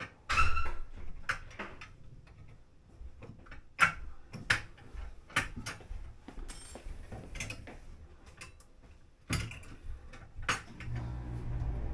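Irregular clicks, taps and knocks of hand work with tools and parts, the loudest about half a second in, near four seconds and near nine seconds. A steady low hum comes in near the end.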